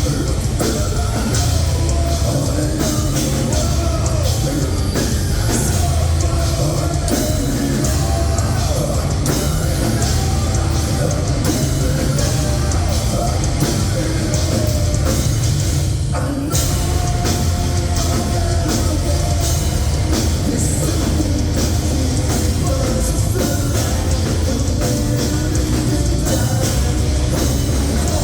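Heavy metal band playing live at full volume: distorted guitars, bass and a drum kit, dense in the low end, with a brief drop in level a little past halfway.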